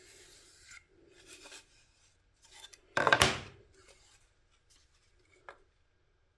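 Hand work on a workpiece at a bench: a few short scraping and rubbing strokes, with one louder scrape about three seconds in and a small tick near the end.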